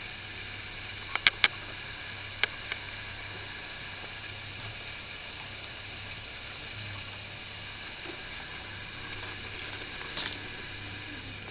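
Steady background hiss and low hum, with a quick run of three sharp clicks about a second in, two lighter clicks a little later, and a short rustling click near the end.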